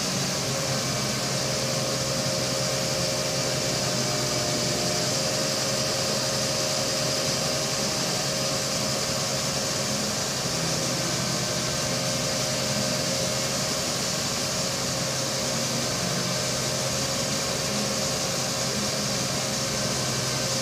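Magirus aerial ladder fire truck's diesel engine running steadily at constant speed: a continuous hum with a steady hiss above it.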